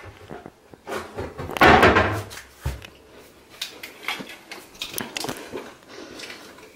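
A string of short clicks, knocks and rustles, loudest as a rustling burst about two seconds in followed by a dull thump.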